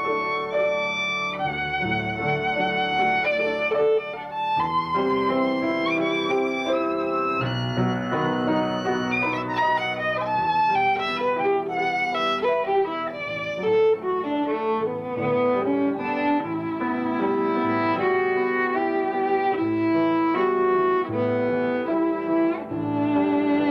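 Violin played with a bow: a continuous melody of held notes with vibrato, with several pitches sounding together from about four seconds in.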